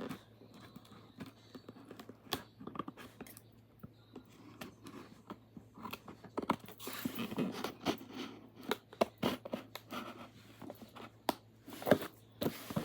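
Blind-box packaging being opened by hand: cardboard and plastic wrapping tearing and crinkling, with many scattered small clicks and taps and a longer rustle about seven seconds in.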